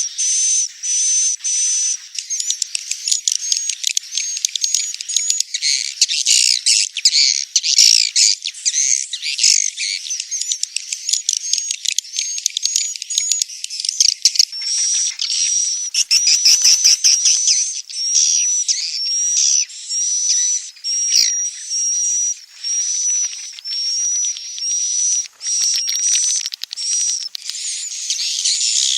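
A swiftlet call track: dense, high-pitched twittering and rapid clicking chirps, turning past halfway into a run of short whistled notes repeated evenly. Tracks like this are played to draw wild swiftlets in to nest.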